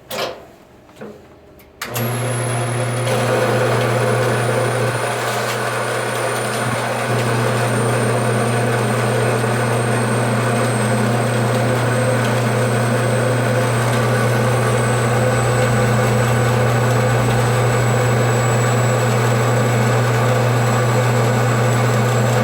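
A couple of light knocks, then a metal-cutting band saw switches on about two seconds in. It runs steadily through a thick cast brass bar, a steady motor hum with a thin high whine that slowly slides lower in pitch.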